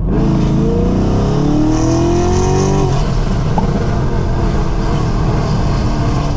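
Chevrolet Camaro SS's V8 with long-tube headers pulling hard under acceleration, its pitch rising for about three seconds. Then the rising tone gives way to a rougher, uneven exhaust sound.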